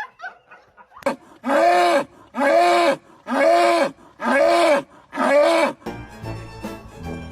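A farm animal calling loudly five times in a row, each call under a second long and rising then falling in pitch. Music comes in near the end.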